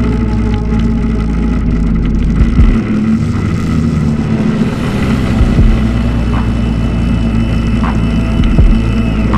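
Honda Recon 250 ATV's single-cylinder four-stroke engine running steadily as the ATV rolls along a wet road, with tyre hiss on the wet pavement.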